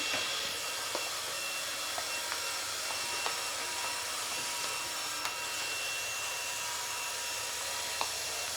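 Roomba robot vacuum running steadily, a hiss of suction with a thin motor whine, and a few light ticks scattered through it.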